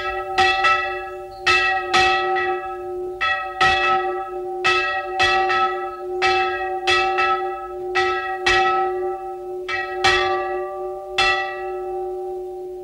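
Church bells ringing, struck about twice a second in an uneven rhythm, each strike over a steady hum that carries on. The strikes stop near the end and the ring fades away.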